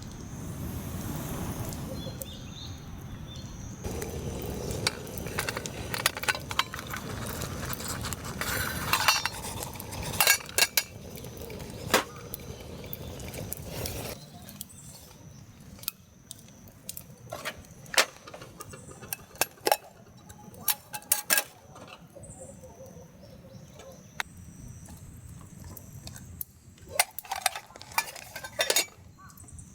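Dishes and cutlery clinking in a scatter of sharp separate clicks, over a steady low rush that drops away about halfway through.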